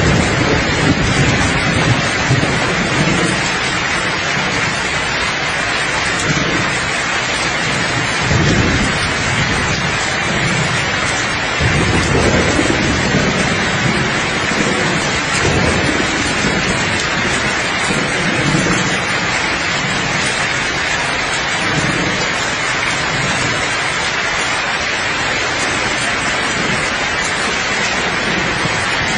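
Steady rain falling, with soft low thunder rumbling in and out several times, the heaviest rumble near the start.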